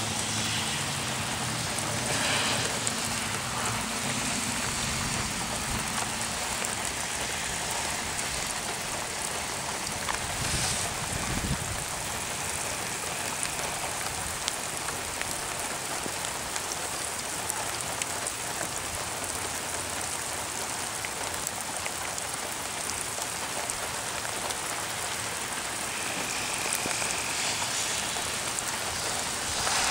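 Heavy rain falling steadily, a continuous even hiss of rain on wet grass and ground.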